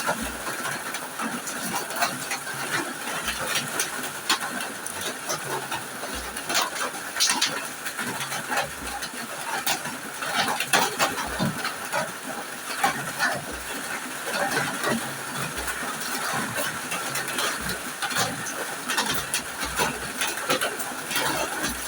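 Water splashing irregularly as a person bathes with warm water, over the steady hiss of heavy rain.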